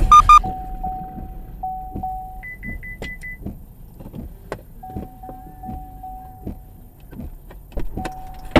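Car's electronic warning chimes sounding just after a head-on collision: a couple of loud short beeps at the start, then a mid-pitched chime repeating in runs that stop and restart, with a quick run of four higher beeps about two and a half seconds in. Scattered light clicks and knocks run under the chimes.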